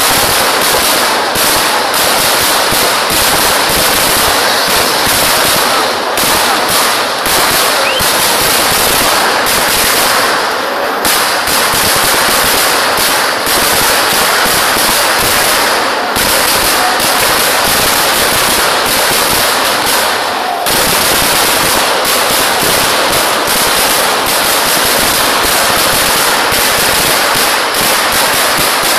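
Fireworks going off in a dense, unbroken rapid-fire string of cracking explosions, like machine-gun fire, easing briefly about ten and about twenty seconds in.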